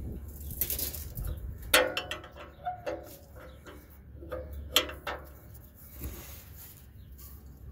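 Sharp metallic clinks of a wrench and oxygen-sensor socket knocking against the steel exhaust pipe as the sensor is worked. The two loudest come about two and five seconds in, each with a brief ring, over a low steady hum.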